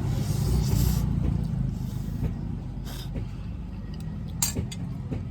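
Steady low engine rumble, with a brief hiss in the first second and a few short clicks.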